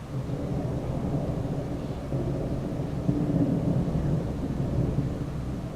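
Thunder rolling as a low rumble from a lightning storm, swelling around the middle and easing toward the end.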